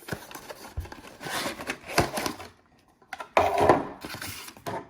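A product box being opened and its contents handled: a few sharp knocks with stretches of rustling and scraping of cardboard and paper, the loudest rustle a little after the middle.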